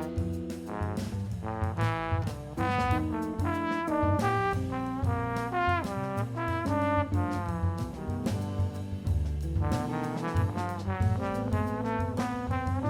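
A solo saxophone playing a melody over a backing track with bass.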